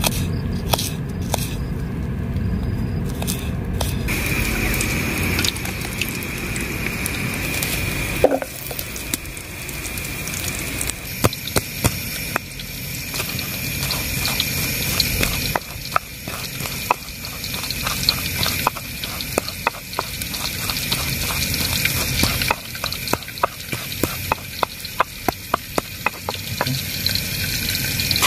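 Stone pestle striking and grinding shallots and garlic in a stone mortar (cobek and ulekan): a few knife cuts at first, then from about eleven seconds in a run of sharp stone-on-stone knocks, one to three a second and quicker near the end. A steady background hiss runs under it.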